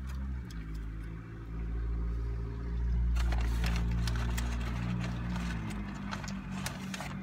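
Low engine rumble of a motor vehicle, swelling about a second and a half in and dying away near the end. Light crinkling of paper taco wrappers and eating noises over it.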